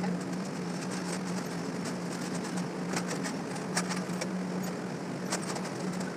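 A steady low hum over a background hiss, with a few short light clicks and taps scattered through it.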